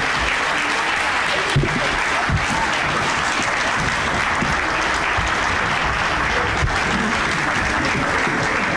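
Audience applauding steadily, the dense clapping of a full auditorium at a curtain call.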